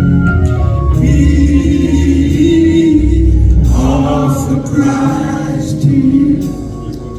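Gospel music: a choir singing held notes over instrumental accompaniment.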